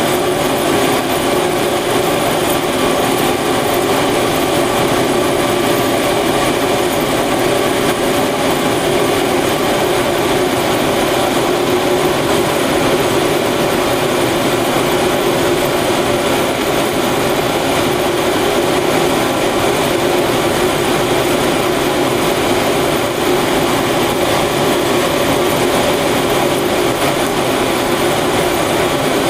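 Cremation furnace firing: a loud, steady mechanical rush from its burners and fans, with a few faint steady tones in it.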